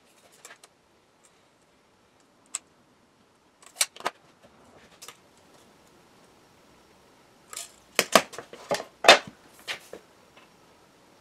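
Scattered clicks and knocks of a tape measure, a marker and a long rule being handled and set down on a sheet of glass, with a quick cluster of sharper clacks about eight to nine seconds in.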